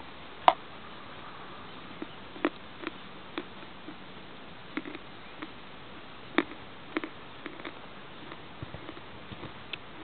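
A hard, crumbly white chunk bitten off with a sharp crack about half a second in, then chewed with irregular crisp crunches close to the microphone.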